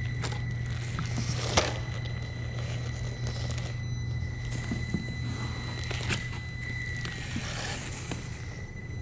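Traxxas TRX-4M Bronco RC crawler's small electric motor and geared drivetrain whining steadily as it crawls over loose dirt and debris. Tyres crackle and scrape on the rubble, with a sharp knock about one and a half seconds in and another about six seconds in.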